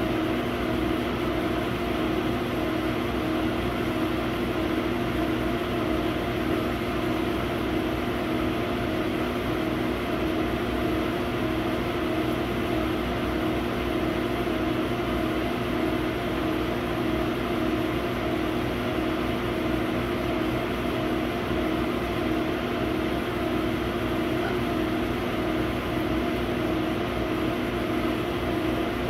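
100 W CO2 laser cutter running while it cuts MDF: a steady machine hum with a few constant tones.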